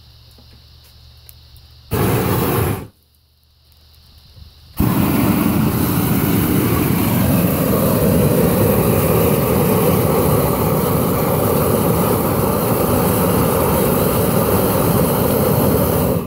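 Long-wand blowtorch fired in a short blast about two seconds in, then lit again and burning steadily and loudly from about five seconds in until it shuts off suddenly at the end.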